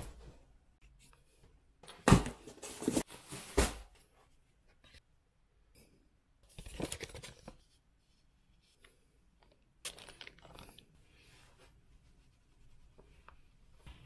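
Packaging being torn open, with a sharp knock at the start and several loud ripping strokes about two to four seconds in. Paper and plastic wrapping rustle more softly later on.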